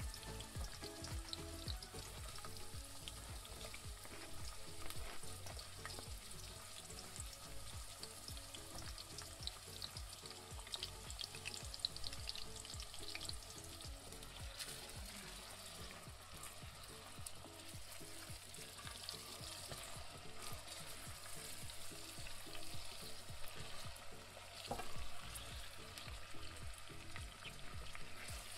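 Chopped tomatoes, onion and peppers sizzling in a tiny metal pan, a steady faint hiss with many small crackles. Now and then comes the light scrape and tap of a miniature spoon stirring.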